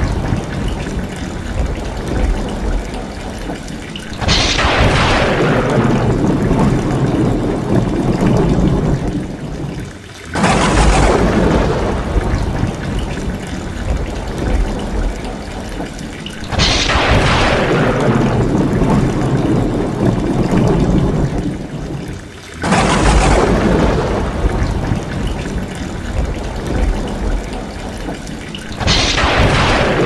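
Rainwater pouring off the edge of a tiled roof in a thunderstorm, with thunder rolling in sudden surges about every six seconds, each fading over a few seconds.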